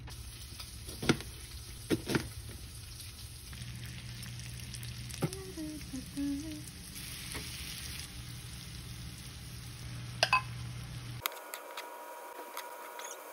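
Diced bacon and onion frying in a nonstick pan with a faint steady sizzle, broken by a few sharp clicks of a utensil striking the pan. The sound changes near the end as the rice is stirred in the pan.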